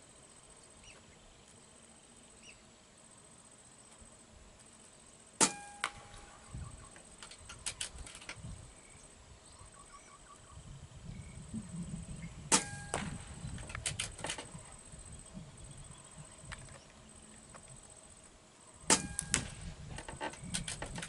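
PCP air rifle fired three times, several seconds apart. Each shot is a sharp crack with a brief ringing tone, followed by a few quieter clicks.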